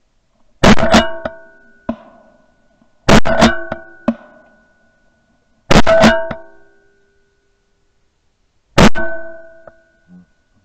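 Four loud shotgun shots about every two and a half to three seconds, recorded by a camera mounted on the gun, each followed by a brief metallic ringing that fades within about a second.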